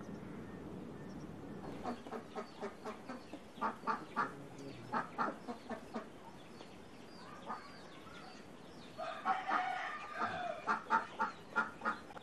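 Domestic poultry calling in short repeated calls, in loose clusters, then a denser and louder flurry of calls near the end. A low steady outdoor noise comes before the calls begin.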